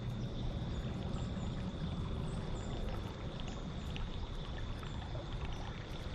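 Steady running water, with a faint steady high-pitched tone over it.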